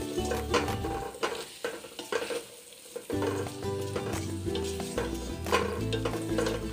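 A spatula stirring and scraping meat in a sizzling metal pot, which knocks and rattles on the gas burner grate with each stir because its bottom doesn't sit level. The knocking eases for about a second midway, then picks up again.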